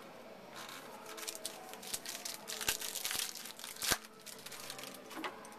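Crinkling and tearing of a trading-card pack's foil wrapper being opened by hand. The crackling runs for about three seconds, with a sharp click near the end of it.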